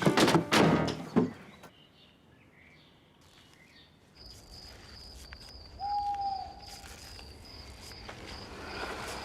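Evening outdoor ambience: crickets chirping in a steady, evenly pulsed high trill from about four seconds in, with a single short bird call around six seconds. The first second holds a brief burst of louder noise.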